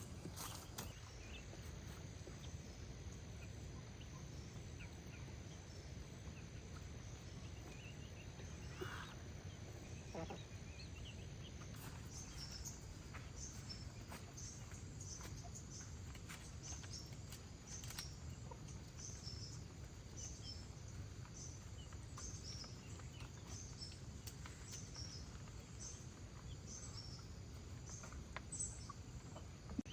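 Faint outdoor ambience with a steady low rumble. From about twelve seconds in, a small bird chirps over and over, high-pitched, about one to two chirps a second.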